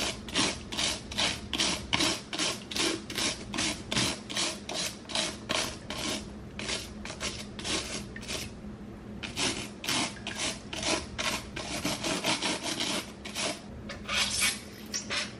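A small stiff-bristled cleaning brush scrubbed back and forth across the pins of a wet paddle hairbrush, in regular strokes about three to four a second, with a short pause a little past halfway.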